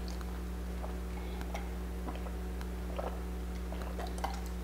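Faint, irregular small clicks and swallowing sounds as a person drinks from a plastic cup, over a steady low hum.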